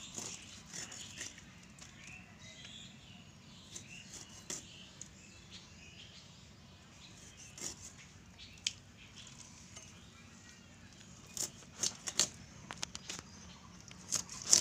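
Scattered short wet clicks and smacks of raw fish flesh being handled and cut against a bonti's curved blade, with a quick run of them near the end. Faint bird chirps sit underneath.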